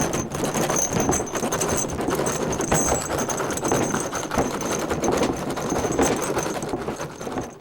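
Foley recreation of a horse-drawn carriage: dense, rhythmic hoof clip-clop with rattling knocks, and a thin high ringing over it. It cuts off near the end.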